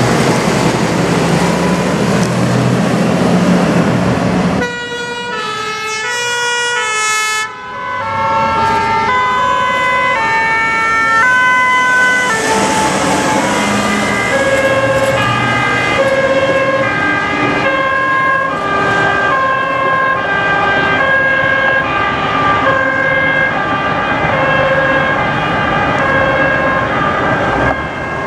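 A heavy fire rescue truck's engine running as it pulls away, then fire service two-tone sirens alternating steadily between a high and a low note, from about five seconds in.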